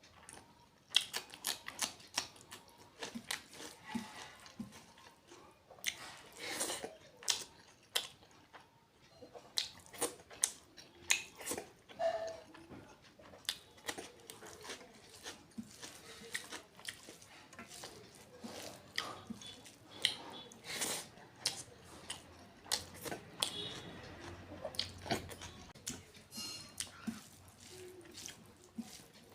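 Close-up chewing and mouth smacking of someone eating a curry meal: many short, irregular wet clicks and smacks, several a second.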